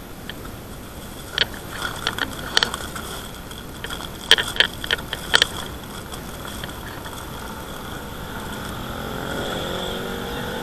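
Plastic grocery bag crinkling and rustling as hands rummage through it, with sharp crackles in the first half and a steady hum underneath.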